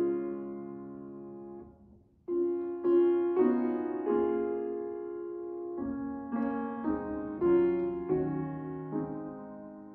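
Piano playing slow chords, each struck and left to ring and fade, with a brief pause about two seconds in.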